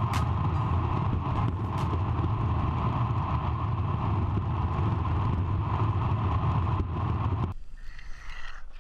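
Longboard wheels rolling fast down an asphalt road with wind rushing over the microphone: a steady rumble and hum. It cuts off abruptly near the end, giving way to much quieter sound.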